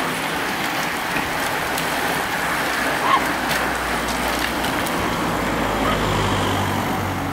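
A bunch of road-racing bicycles riding past close by: a steady whir of tyres and drivetrains with scattered clicks, and a low rumble building near the end.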